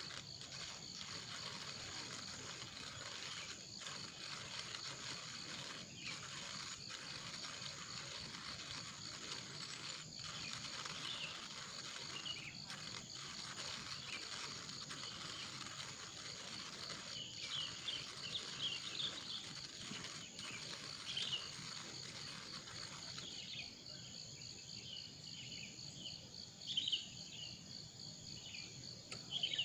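Forest insects, cricket-like, trilling steadily in fine high pulses, with short high chirps scattered over them. A background hiss under the insects drops away past the middle, and two louder chirps come near the end.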